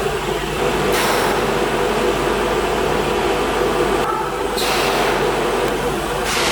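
CNC nesting router running: a steady mechanical rush with a hum underneath, as from its spindle and dust extraction. The noise changes abruptly about a second in, again around four and a half seconds, and near the end.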